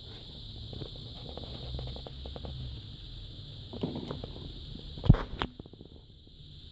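Handling noise: scattered light clicks and rubbing as the opened car CD receiver's metal chassis and the camera are moved about, with two sharper knocks about five seconds in.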